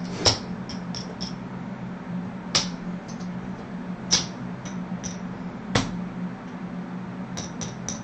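Casino chips clacking as they are stacked and set down on a craps table layout: a few sharp clacks a second or two apart with lighter ticks between, over a steady low hum.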